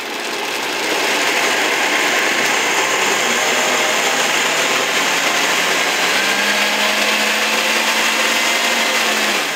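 High-speed blender motor running loudly on a thick mix of pine nuts, garlic and a little water. Its hum steps up slightly in pitch about six seconds in, and it cuts off near the end. The mix is too thick and has stopped blending; it needs more water.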